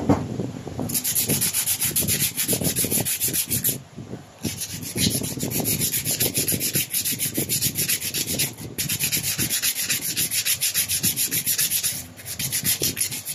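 Sandpaper rubbed by hand in quick back-and-forth strokes over the rusted rotor (armature) of a starter motor, scouring off rust and dirt. The rubbing stops briefly a few times.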